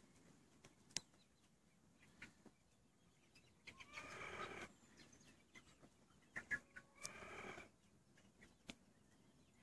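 Australorp chickens calling: two drawn-out calls about a second long, the second a few seconds after the first, among scattered faint clicks.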